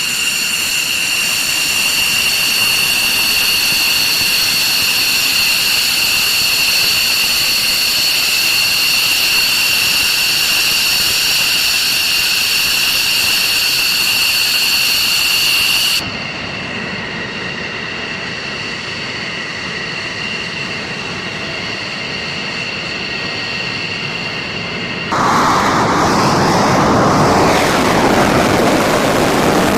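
Fighter jet engine whining steadily, high piercing tones over a rushing roar. The sound cuts abruptly to a quieter, duller version about halfway through, then to a louder, broad rushing noise near the end.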